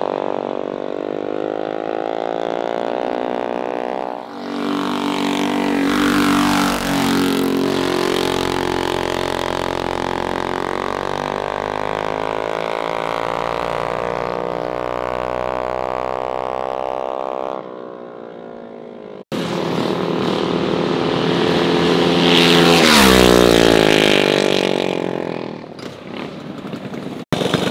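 Mini bike's small four-stroke engine revving hard on a test pass after timing, rocker and carburetor adjustments. The engine note holds steady, then drops in pitch as the bike speeds past near the end.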